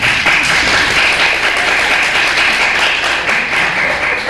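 Audience applauding, a dense steady clapping from many hands.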